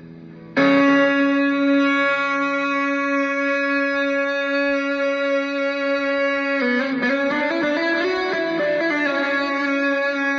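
Epiphone electric guitar played through a Sound Stone effect set to imitate bagpipes. About half a second in, one note starts and is held for about six seconds. Then a quick melody of changing notes plays over a steady held drone.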